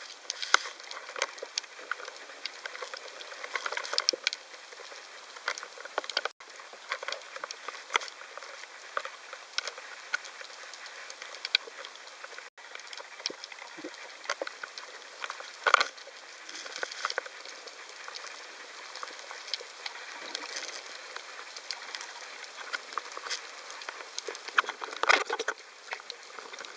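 Dense, steady crackling of snapping shrimp heard underwater on a coral reef, with a few louder bursts of clicks.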